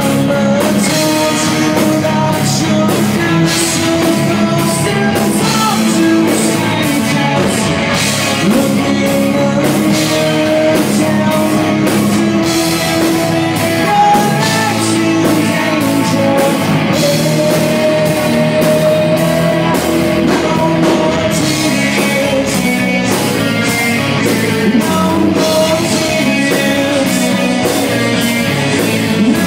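Live rock band playing loudly: electric guitar, bass guitar and drum kit, with a man singing.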